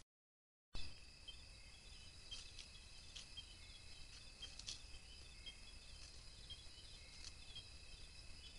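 Night insect chorus: a steady, faint high trilling on two continuous pitches, with a quicker pulsing chirp between them. It cuts in after a moment of dead silence, and a few faint clicks sound over it.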